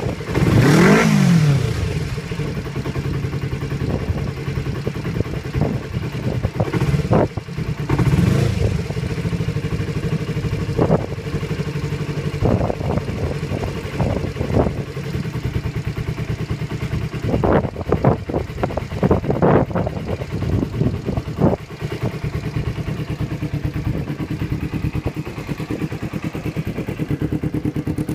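Kawasaki GPX250R-II's parallel-twin engine idling steadily. The throttle is blipped into a quick rev that rises and falls about a second in and again around eight seconds, with a few short, sharp sounds in the middle. It revs up lightly with no unusual noise that the owner can hear.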